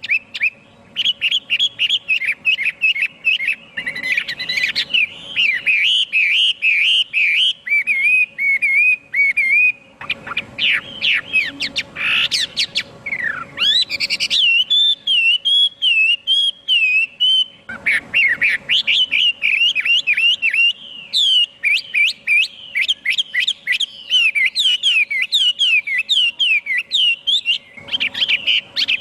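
Chinese hwamei singing: a long run of rapid, varied whistled phrases, broken by brief pauses about ten, eighteen and twenty-eight seconds in.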